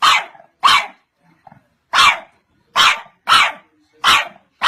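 Young pit bull-type puppy barking: about seven short, high-pitched barks, spaced unevenly with a longer gap about a second in.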